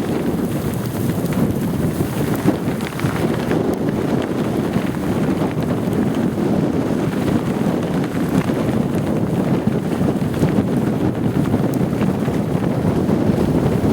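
Strong, steady windstorm wind buffeting the microphone, with nylon wind pants flapping and fluttering rapidly in it.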